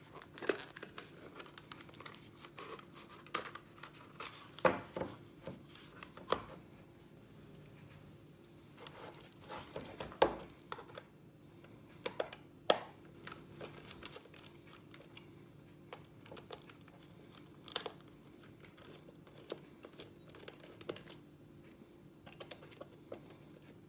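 Handling noise from a digital multimeter in a rubber holster: its plastic case knocking and rubbing on a wooden floor as it is picked up and turned over, and a small screwdriver clicking in the screw of the back cover. Scattered clicks and knocks, the loudest about 5, 10 and 13 seconds in.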